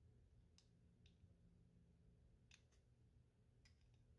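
Near silence, with about five faint metallic clicks from a Steyr-Mannlicher M95 rifle bolt being handled as its bolt head sits in the bolt body.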